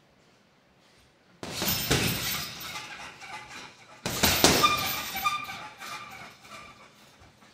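Two hard punches on a hanging heavy bag, about two and a half seconds apart, each setting off a loud metallic rattling and clinking from the bag's hanging chains that dies away over two to three seconds.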